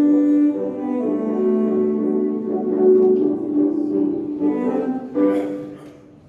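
Background music: slow classical-style strings with piano, held notes changing about every second, fading out near the end.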